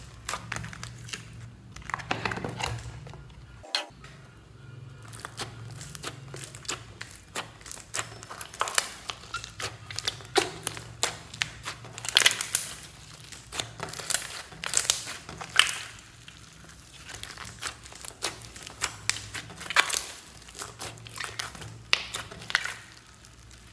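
Hands kneading and squeezing a large mass of slime mixed with clay, giving irregular wet squelching clicks and crackly pops as air pockets burst, over quiet background music.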